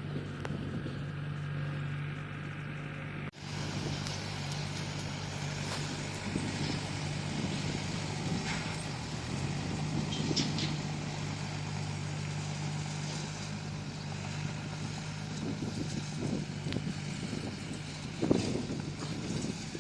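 Bulldozer's diesel engine running steadily, with an abrupt break about three seconds in, scattered knocks, and a louder thump near the end.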